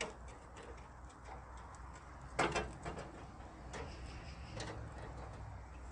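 Scattered metallic clicks and clinks of hand tools working rusty bolts, with a louder clatter of several quick clinks about two and a half seconds in.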